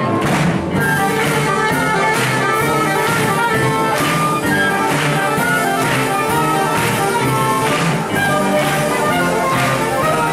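Music with a melody over a steady beat of just under two beats a second, playing for a dance routine.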